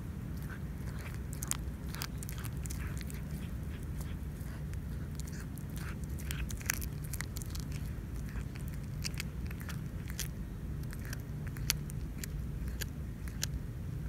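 A cat chewing a rat up close: irregular wet crunches and clicks of its teeth working through the carcass, several a second, over a steady low hum.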